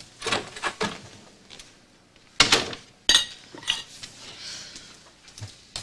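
Breakfast dishes and cutlery being handled: a series of sharp clinks and knocks of china and silverware. The loudest come about two and a half and three seconds in, the second with a brief ring.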